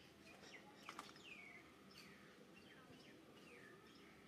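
Faint bird calls: a run of short whistled notes, each sliding down in pitch, repeated every half second or so, with a couple of light clicks about a second in.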